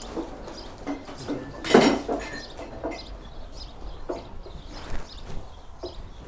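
Dishes and kitchenware clinking and knocking as they are handled and carried, with one louder clatter about two seconds in.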